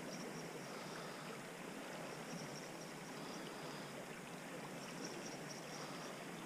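Creek water running steadily, a faint, even rush, with a faint high-pitched flickering chirping above it.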